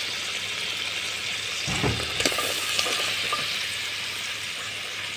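Chicken curry sizzling steadily in a pan, with a few knocks from stirring against the pan about two seconds in.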